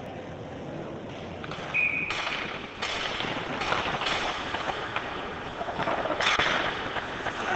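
Ice hockey play on an indoor rink: skates scraping the ice and sticks clacking around a faceoff, with a short high call about two seconds in. Quieter at first, the sharp clacks and scrapes start about two seconds in and come on and off after that.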